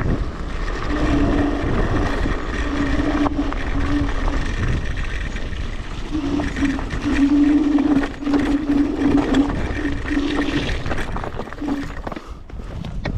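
Electric scooter being ridden, with wind and riding rumble on the microphone and a steady low drone that cuts in and out repeatedly.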